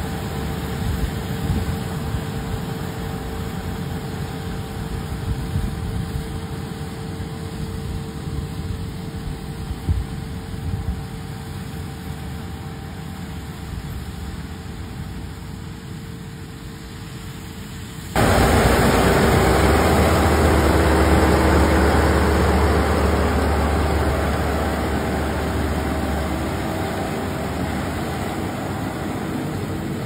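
Kubota combine harvester running as it cuts and threshes rice, a steady drone of engine and machinery. It becomes suddenly much louder about two-thirds of the way through.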